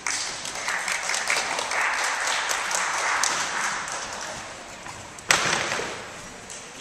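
An audience clapping and applauding, fading after about four and a half seconds. A single sharp thump comes about five seconds in.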